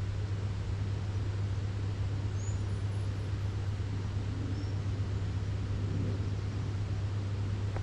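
Steady low hum over even background noise that stays unchanged throughout, with two faint, short high chirps near the middle.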